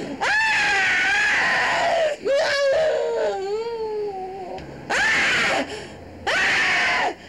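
Loud, high-pitched wailing cries, about four in a row, each rising sharply and then held for a second or two, with short breaks between them.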